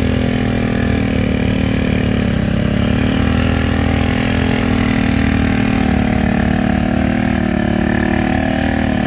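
A vehicle engine running steadily, its pitch holding nearly constant with small wavers.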